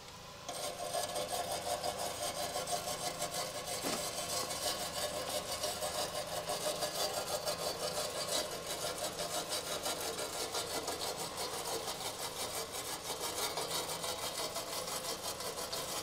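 A stiff nylon-bristle brush scrubbing the burner tube of a Dyna-Glo ventless propane heater in even back-and-forth strokes, about four a second, clearing dust and rust from the burner slots. The scrubbing starts about half a second in and keeps a steady rhythm.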